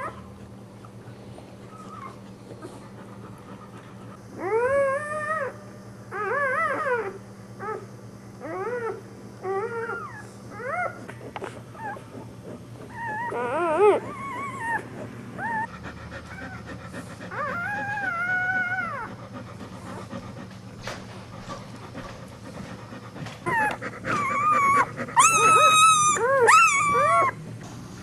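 Newborn American Staffordshire Terrier (pit bull) puppies crying in short, high-pitched squeals that rise and fall, in bursts of several cries. The loudest, shrillest run of cries comes near the end.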